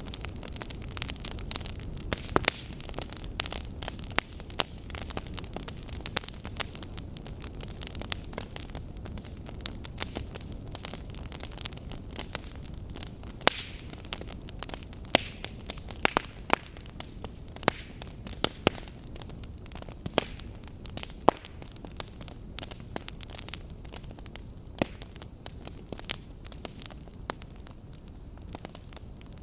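Campfire burning: a steady low rush with frequent irregular crackles and sharp pops from the burning wood.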